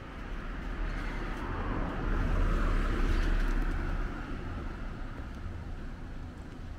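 A car driving past, its engine and tyre noise swelling to a peak about two to three seconds in, then fading away.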